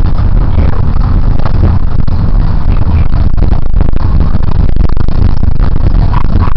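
Loud, steady engine and road noise heard from inside a moving school bus.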